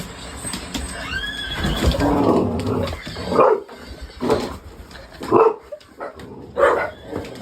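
An animal calling: a long falling call about two seconds in, then short repeated calls about once a second.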